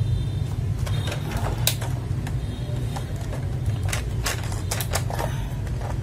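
Irregular plastic clicks and clacks of XDA keycaps being pressed onto and tapped on a mechanical keyboard with Gateron Milky Yellow switches, thickest in the second half, over a steady low hum.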